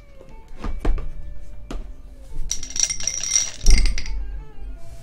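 A 20-sided die rattling inside a clear plastic cup for about a second, ending in a thump as the cup comes down on the table; a few light clicks come before it.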